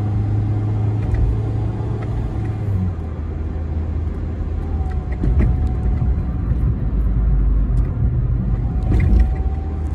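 Engine and road noise inside a moving car's cabin: a steady low hum that drops in pitch about three seconds in.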